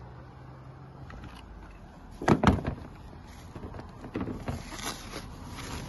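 Handling noise from a carpeted car subwoofer box: a cluster of sharp knocks a little over two seconds in, then rustling and bumping as black plastic bags stuffed inside the speaker cutout are pulled out, over a steady low hum.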